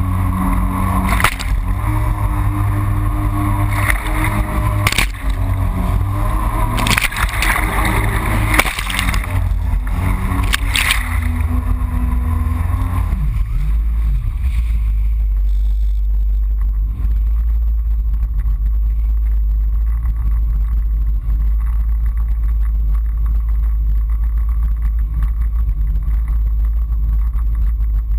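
Yamaha FX HO Cruiser jet ski running under way, its engine note steady, with several sharp splashes of water against the hull. About halfway through, the engine tone fades and a steady low rumble remains, muffled by the GoPro's sealed housing.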